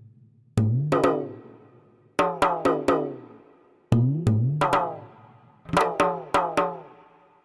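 Sampled Anatolian percussion from the Percussion Of Anatolia Kontakt library: a drum playing a repeating rhythmic phrase of three to five quick strokes every second and a half or so. Each stroke rings out with a deep tone that bends in pitch as it fades.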